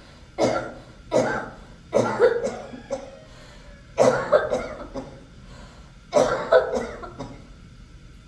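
A woman's harsh, cough-like sobs into a tissue, coming in five sudden bursts a second or two apart, several of them double.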